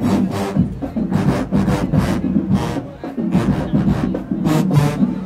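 HBCU marching band playing: sousaphones and other brass sound heavy low notes over drumline strikes at a quick, steady beat.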